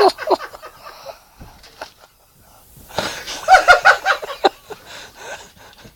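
Men stifling laughter, wheezing and snickering, with a louder burst of laughter about three seconds in.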